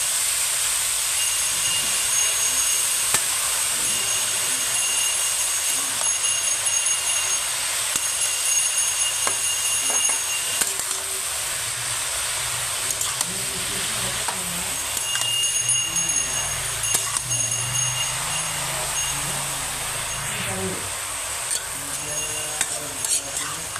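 Mushrooms frying in a hot pan: a steady sizzling hiss, with occasional light scrapes and clicks as they are stirred.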